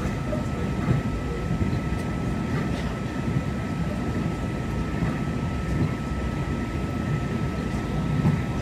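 Steady low rumble of a Taiwan Railway Tze-Chiang express passenger car running on the line, heard from inside the car, with a thin steady whine above it.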